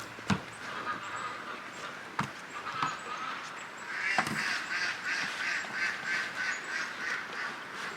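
Domestic ducks quacking: a fast, steady run of quacks starts about halfway through, after a few sharp knocks.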